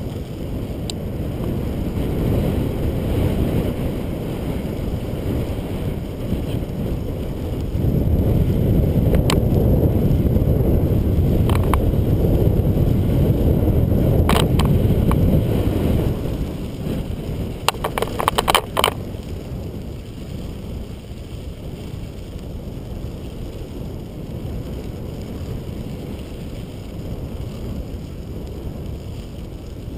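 Wind rumbling on the microphone of a moving bicycle with the tyres rolling on a gravel trail, louder for several seconds in the first half. A few sharp clicks and rattles break through, including a quick run of them a little past the middle.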